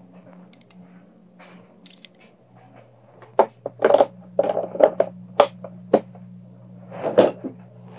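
Thin plastic water-filter tubing being handled and bent close to the microphone: a run of sharp clicks, crackles and scrapes starting about three seconds in, over a steady low hum.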